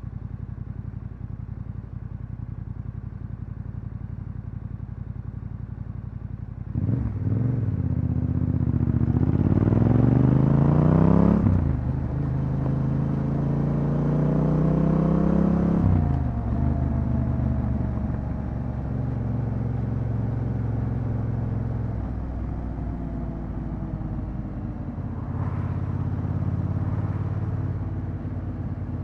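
Yamaha Ténéré 700's parallel-twin engine through an Akrapovič exhaust, ticking over steadily, then pulling away: the revs rise, break at a gear change about eleven seconds in, and rise again. The revs then fall away as the throttle closes, and the bike runs on at a steady note with one short rise near the end.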